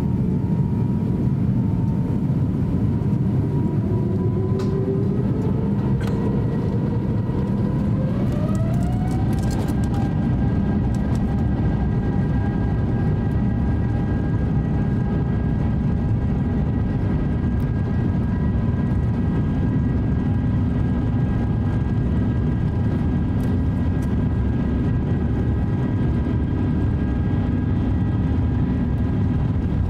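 Airbus A350-900's Rolls-Royce Trent XWB engines heard from inside the cabin, spooling up to takeoff thrust: several whining tones rise in pitch over the first eight to ten seconds, then hold steady over a constant low rumble.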